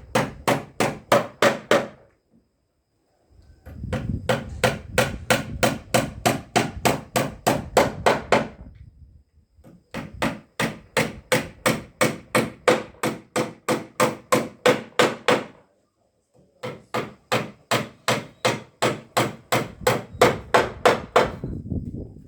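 Hammer blows on wood, quick and even at about three a second, in four runs with short pauses between them.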